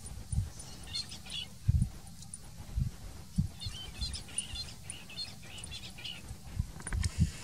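Small birds chirping in short repeated high calls, over irregular low thuds about once or twice a second.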